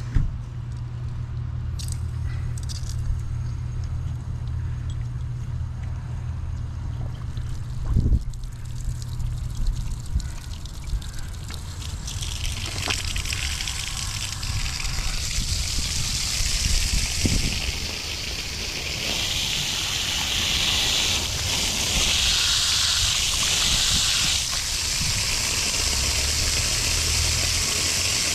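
Water running and hissing through plumbing as the main supply is turned back on after a shut-off valve replacement. It grows to a strong steady rush from about halfway through, with a few knocks before it and a low steady hum underneath.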